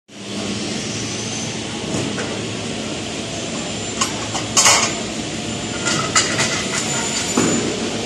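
Steady factory-floor hum with a few sharp metal clicks and knocks as a metal connector bracket is handled and fitted against a curtain-wall frame profile, the loudest a short scraping clatter about halfway through.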